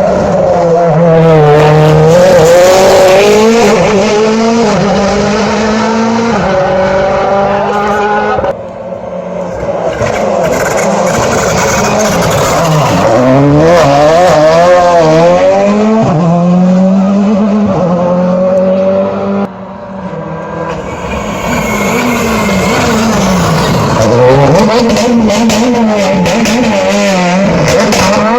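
Rally cars' engines revving hard through a hairpin, the pitch dropping and climbing again and again as they brake, shift and accelerate away. The sound breaks off abruptly twice, after about eight seconds and again near twenty.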